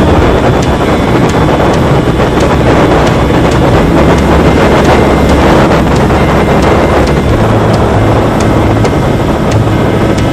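Steady drone of a Volantex Ranger 757-3 RC plane's 3715 brushless outrunner motor and 1060 propeller in cruise flight, mixed with wind rushing over the onboard camera's microphone.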